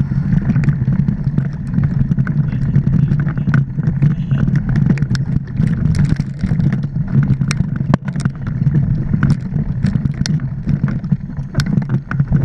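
Mountain bike riding over a rough dirt trail: a steady low rumble of wind and ground vibration on the camera's microphone, with frequent sharp clicks and rattles as the bike jolts over the ground.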